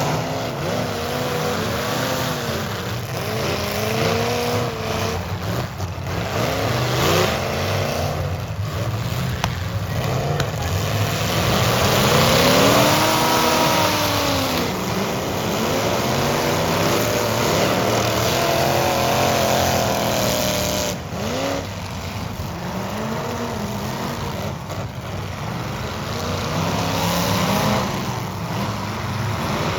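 Engines of several full-size demolition derby cars revving up and down again and again, overlapping one another over a constant rumble.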